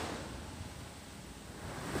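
A steady outdoor rushing wash of noise with no distinct events. It eases through the middle and swells back near the end.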